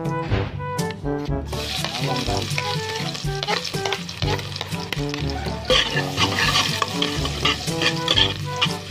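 Chopped garlic dropped into hot oil in a pot starts sizzling about a second and a half in; from a little past the middle a metal spoon stirs and scrapes it as it fries. Background music plays throughout.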